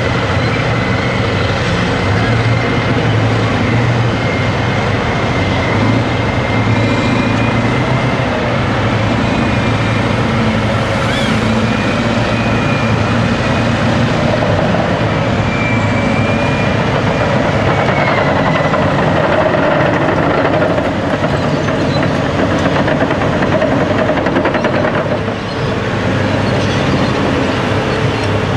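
A Caterpillar D10R crawler dozer push-loading a Caterpillar 631E wheel tractor-scraper: the heavy diesel engines run steadily under load, with a faint high whine wavering over the rumble through the first half.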